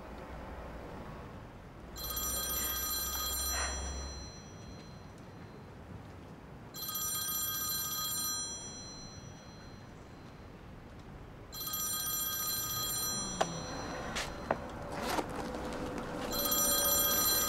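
Mobile phone ringtone ringing four times, about every five seconds, each ring a bright electronic tone lasting about a second and a half. Before the last ring, a handbag being searched for the phone rustles and clicks.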